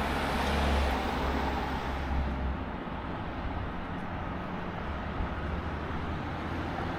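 Street traffic noise: a vehicle goes by in the first couple of seconds, then a steady low rumble of road traffic.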